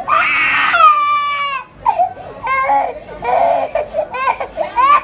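Toddler girl crying hard: one long loud wail that falls in pitch and breaks off just under two seconds in, then a run of shorter sobbing cries rising and falling in pitch.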